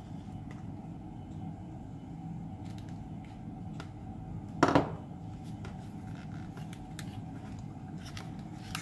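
Hobby knife and fingers working the foam fuselage of an E-flite UMX Carbon Cub SS RC plane: faint scattered clicks and scraping, with one short, loud squeak about halfway through, over a steady low hum.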